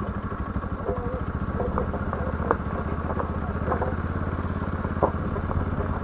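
Motorcycle engine running at low revs with a steady, even pulse, with a few faint ticks above it.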